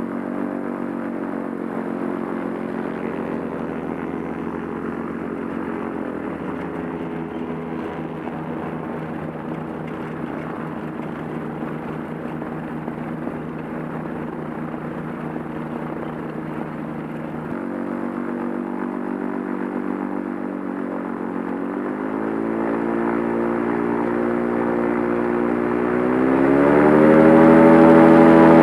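Light propeller aircraft's piston engine running steadily. It dips slightly in pitch after about six seconds, then speeds up in steps and rises sharply in pitch and loudness near the end.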